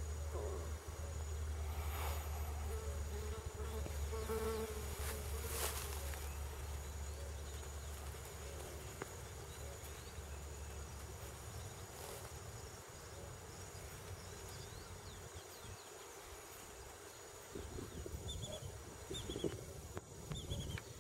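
Outdoor ambience with a flying insect buzzing past, loudest about four to five seconds in, over a low rumble that fades after about eight seconds. A few short high bird chirps come near the end.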